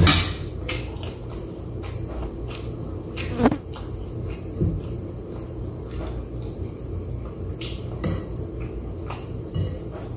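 Eating at a table: a spoon clinking and scraping on a plate in scattered short clicks, one louder knock about three and a half seconds in, with chewing, over a low steady hum.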